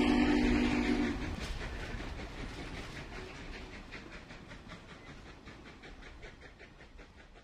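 Steam train: a steam whistle's chord cuts off about a second in, then a quick, even rhythmic beat of the running train fades steadily away.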